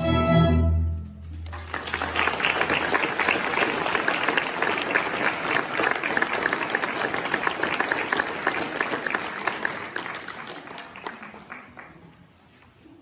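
A student string orchestra's closing chord, cut off about a second in, followed by audience applause that thins out and fades away near the end.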